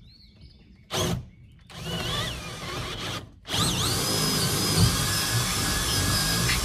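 Cordless drill boring a hole through a wooden coop wall. A short blip about a second in, then a run of about a second and a half with a rising whine. After a brief pause comes a longer, steady run of about three seconds.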